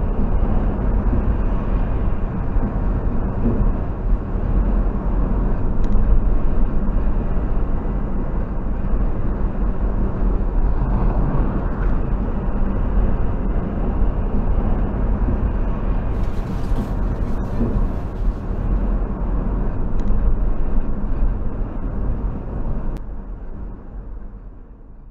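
Steady road noise inside a car at highway speed: a continuous low rumble of tyres and engine with wind noise, picked up by a dashcam microphone. It fades out near the end.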